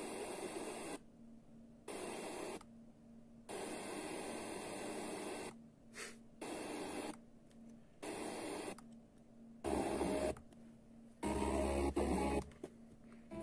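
Sony DAV-560 FM tuner being stepped up the band between stations. Short bursts of static hiss alternate with gaps where the tuner mutes, about one step a second, and two louder bursts with more bass near the end as a signal partly comes through.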